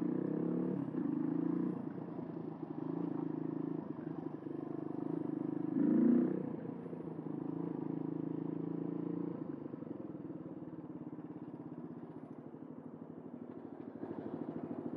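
Suzuki DR125 dual-sport's single-cylinder four-stroke engine running as the bike is ridden. The revs swell briefly about six seconds in, then the engine runs lower and quieter for the rest.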